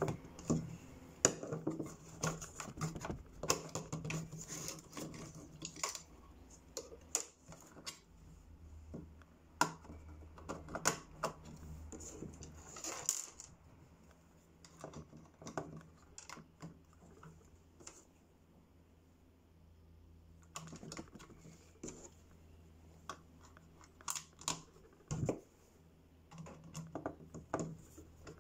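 A screwdriver turning screws in a gun and its small parts being handled on a tabletop: irregular sharp clicks, taps and scrapes, quieter for a few seconds past the middle.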